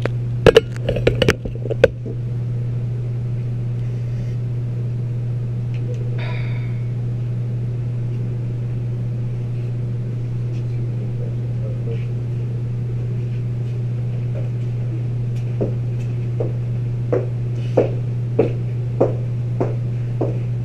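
A steady low hum throughout. In the first two seconds come a few loud knocks and clatter as the coffee pot holding the camera is handled on the steel table. Near the end there is a run of light taps, about one every half second.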